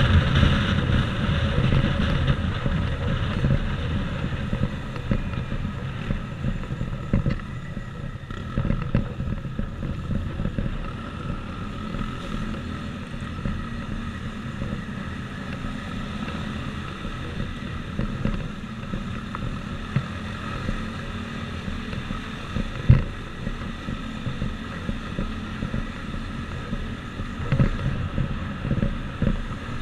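Motorcycle engine running as the bike is ridden in slow traffic, with wind noise on the microphone. Louder at first, then easing off as the bike slows, with a single sharp knock about three quarters of the way through.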